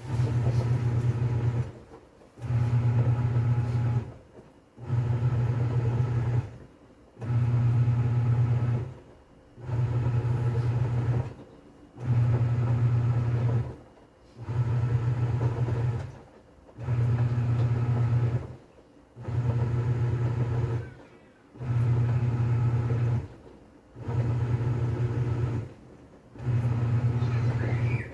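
TCL 7.5 kg top-load washing machine agitating in its wash cycle: the motor hums in runs of about two seconds, with a short pause between each as the pulsator reverses direction.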